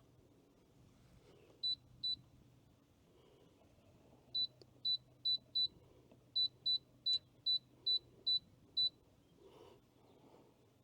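Air fryer control panel beeping as its buttons are pressed to set the cooking time and temperature. There are two short high beeps, then after a pause a run of about eleven more at roughly two a second.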